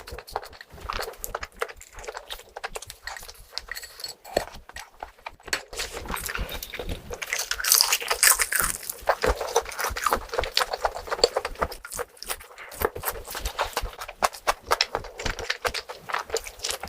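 Close-miked eating sounds: a steady run of wet chewing and mouth clicks, louder and hissier for a couple of seconds around the middle.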